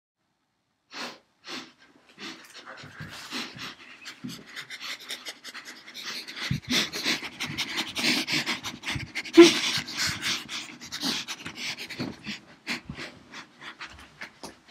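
A dog panting rapidly close to the microphone, quick breathy puffs that start as a few separate breaths and then run on fast and continuous, easing off near the end.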